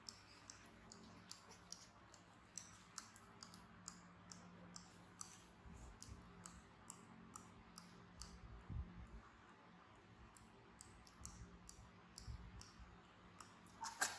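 Faint, irregular small clicks, about one to two a second, with one louder click near the end and a few soft low thumps: a baby macaque sucking its fingers.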